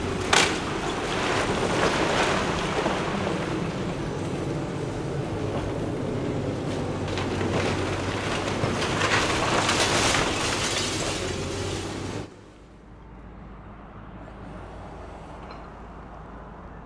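Kobelco excavator's diesel engine running while its demolition grapple tears into a building, with debris cracking and crashing down, loudest just after the start, about two seconds in and again around nine to ten seconds, over a steady hiss of water spray. About twelve seconds in it cuts suddenly to a much quieter, steady low background of the street.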